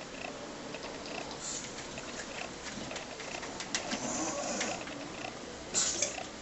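Six-week-old English bulldog puppies snoring in their sleep, with a brief louder noise near the end.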